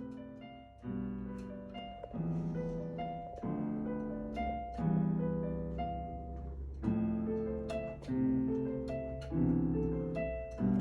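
Piano played slowly: a low chord struck about every second and a quarter, with higher single notes picked out between the chords.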